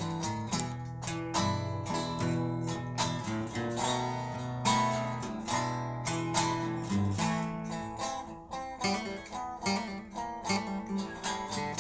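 Blues band playing an instrumental passage with guitar to the fore: quick plucked notes over sustained low notes, no singing.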